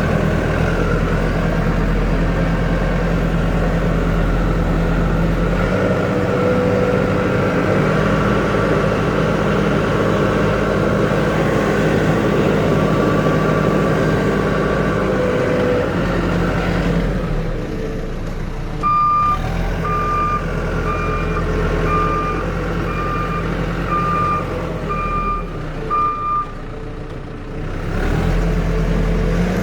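Backhoe loader's diesel engine running steadily, then easing off. From about two-thirds of the way in, a reversing alarm beeps about ten times, a little more than once a second. The engine picks up again near the end.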